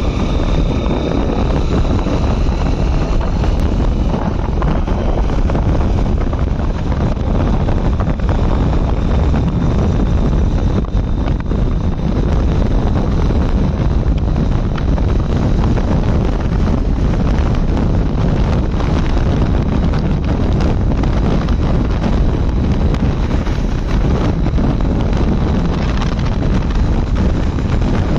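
Heavy wind buffeting the microphone on a Honda SP 125 motorcycle accelerating hard at highway speed toward its top speed, with the 124 cc single-cylinder engine and tyre noise underneath. The noise is loud and steady throughout.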